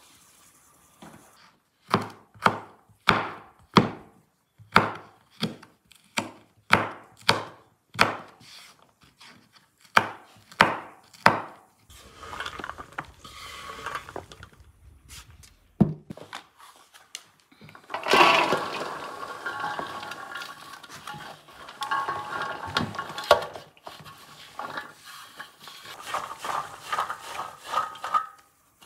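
Knife chopping green beans on a wooden board, about a dozen evenly spaced strokes. Then the cut pieces are scraped off the board and tumble into a metal basin with a rustling clatter and a faint ring from the bowl.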